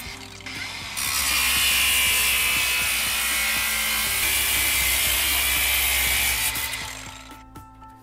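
Angle grinder with a cut-off disc cutting through a refrigerator evaporator's metal tube: a steady, loud grinding starts about a second in, lasts about five seconds, and dies away near the end.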